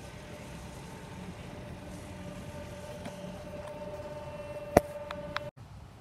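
Steady hum and whine of distant earth-moving machinery running, with a sharp click near the end, after which the sound briefly drops out.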